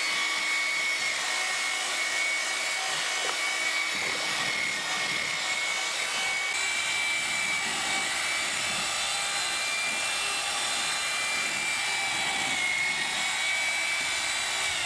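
Electric drill with a mixing paddle running at steady speed in a bucket, mixing tint into a batch of StyroCrete coating, with a constant motor whine. Near the end the whine drops in pitch as the drill winds down.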